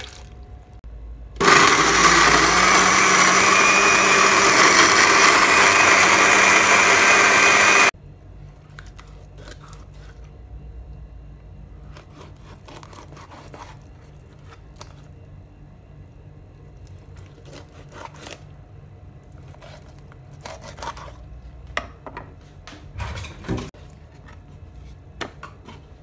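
Electric food processor running for about six seconds and stopping abruptly, blending green bell peppers, kpakpo shito peppers and a little water into a marinade paste. It is followed by faint scattered knocks and scrapes, a few louder near the end, as a knife scores a whole tilapia on a wooden cutting board.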